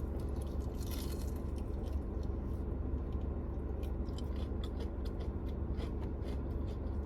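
Close-up chewing and biting into crispy fried chicken: scattered small crunches and mouth clicks over a steady low hum.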